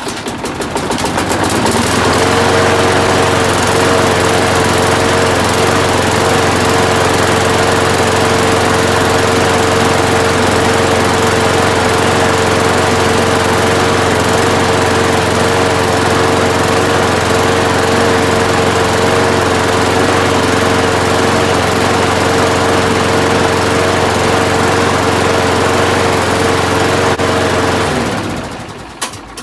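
Craftsman 6.75 walk-behind lawn mower's small single-cylinder engine pull-started. It catches at once and comes up to speed over a couple of seconds, then runs steadily at a constant speed. It winds down and stops near the end.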